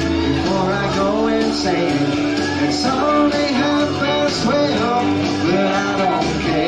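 Live country-rock music, amplified through PA speakers: electric guitar playing lead lines with bending notes over a steady bass backing.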